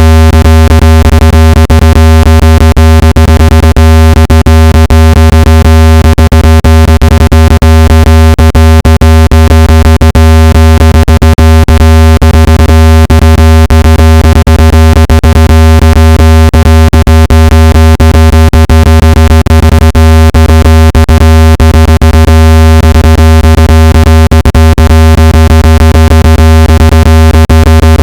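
Loud, steady low-pitched electronic buzzing tone with many overtones, crossed by a fast irregular crackle of clicks: a synthesized speaker-cleaning tone meant to shake water and dust out of a phone speaker.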